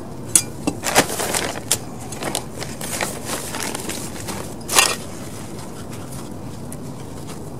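Potting soil mixed with perlite being scooped and poured from a metal trowel into a clay pot, with gritty scrapes and crackles. One sharp scrape comes near five seconds in, and then the soil is pressed in by hand more quietly.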